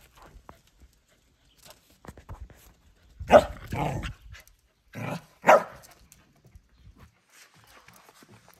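Corgi puppy barking: a pair of sharp barks about three seconds in and another pair about five seconds in, with quiet gaps between.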